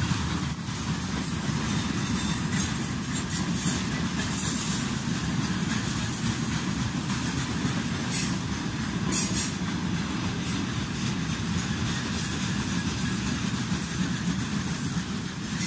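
Freight train wagons (tank cars and covered boxcars) rolling past on the track: a steady low rumble with occasional sharper knocks.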